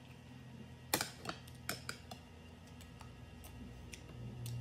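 Metal spoon clinking and scraping against a ceramic bowl and plate while eating, a handful of sharp separate clicks, the loudest about a second in.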